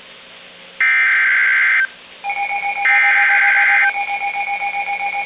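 NOAA Weather Radio SAME header: harsh digital data bursts of about a second each, the second and third of the usual three, sent to trigger an emergency alert. About two seconds in, a steady pulsing alarm tone starts under them.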